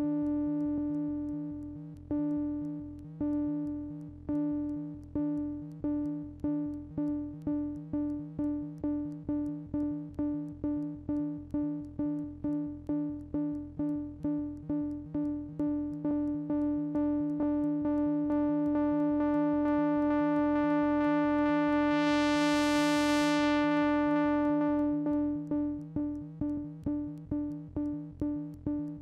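DIY analog synthesizer (Music From Outer Space Sound Lab Mini-Synth) repeating one plucky note over and over. The repeats speed up from about one a second until they run together into a held tone, then slow apart again near the end. While the tone is held, a bright hiss swells in and fades away.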